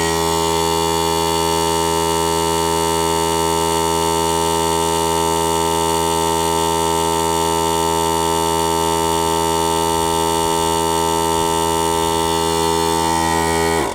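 Briggs & Stratton 4-gallon electric air compressor running loud and steady, charging its tank while powered from a 1750-watt inverter on a 12-volt battery; an even hum made of many steady tones, cutting off suddenly at the very end.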